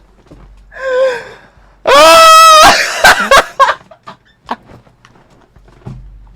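A man crying out in distress: a short wavering cry about a second in, then a long, loud scream about two seconds in, followed by scattered knocks and scuffling.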